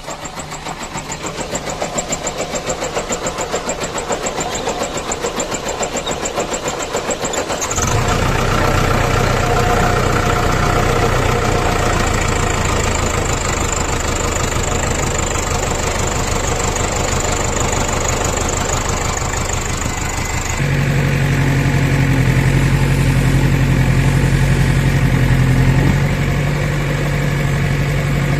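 Diesel engine running, with an even pulsing that slowly gets louder at first. About eight seconds in it becomes heavier and louder, and about twenty seconds in a steady low tone joins it for several seconds.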